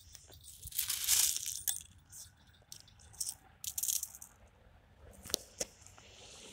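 Footsteps crunching on loose gravel in uneven bursts, with a few sharp clicks of stones knocking together.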